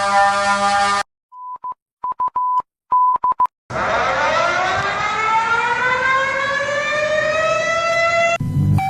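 Emergency alert alarm sounds: a steady multi-tone alert tone that cuts off suddenly about a second in, then a few short groups of beeps, then a siren winding up with its pitch rising steadily. Near the end a different steady tone takes over.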